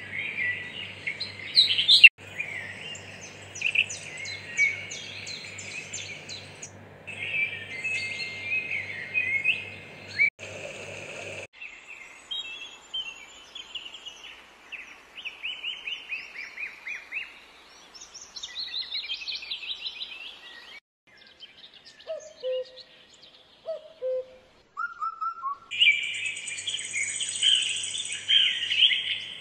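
Small birds chirping and singing, many short calls overlapping, with the background changing abruptly several times. A faint low pulsing hum sits under the first third and the last few seconds.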